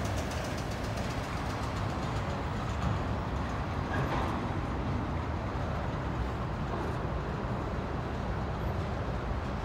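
Freight cars of a long mixed freight train rolling past: a steady rumble of steel wheels on the rails.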